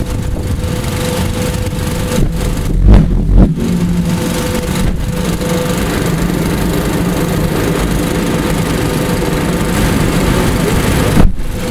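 Big pulse jet engine firing during a start attempt: a loud steady rushing noise broken by two heavy bangs about three seconds in and one more near the end.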